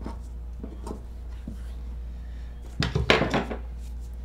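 Shears snipping through a fabric strap, then small knocks and rustles on a wooden tabletop. A louder clatter comes about three seconds in, as the shears are set down and the strap pieces handled.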